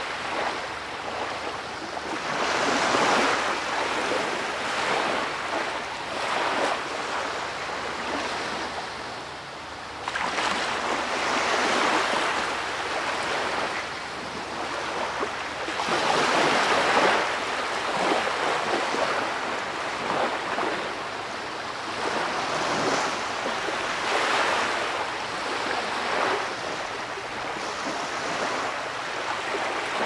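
Ocean surf: waves breaking, the noise of the water swelling and fading every few seconds.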